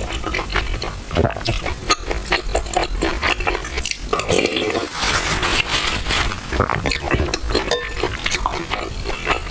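Close-miked eating sounds: wet chewing of soft, chewy purple rice in milk tea, with many small mouth clicks.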